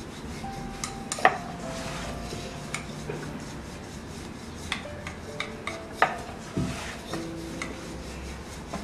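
Rolling pin rolling out a potato-stuffed wheat-dough paratha on a wooden board: a soft, continuous rubbing with a few light knocks of the pin against the board.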